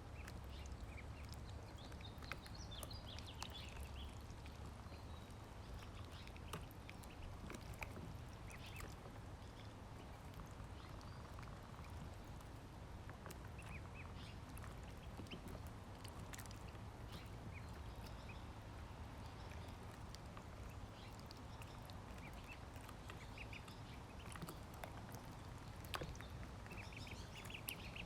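Ducklings peeping in short high chirps, now and then and more busily near the end, amid many light clicks over a low steady hum.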